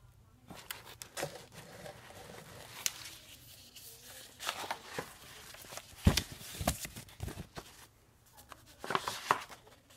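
Paper folders and sheets being handled and flipped: rustling with scattered taps and knocks, the loudest a low thump about six seconds in.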